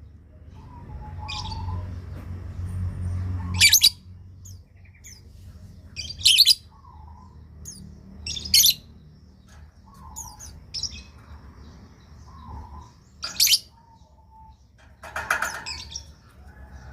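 Lovebird calling in short, shrill chirps: about five loud ones a couple of seconds apart with softer chirps between them, over a steady low hum. It is a lure call, played to make other lovebirds answer.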